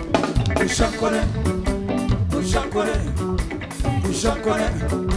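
Live reggae band playing with a steady beat: drum kit, bass line, guitar and keyboard.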